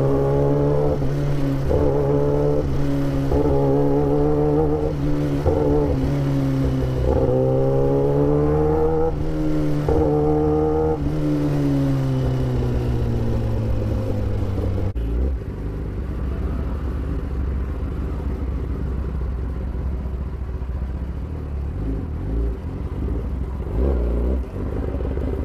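Sport motorcycle engine accelerating through the gears, its pitch climbing and dropping back at each shift for about ten seconds, then easing off. After that it runs at a steadier, lower and somewhat quieter note.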